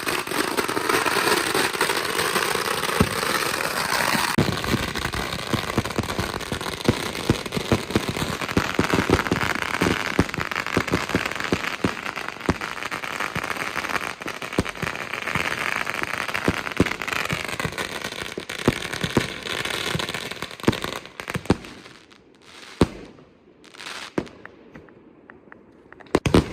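Multi-shot firework cake going off: a dense, continuous run of launches and bangs with crackling. About 21 seconds in it thins out to a few scattered bangs with quieter gaps.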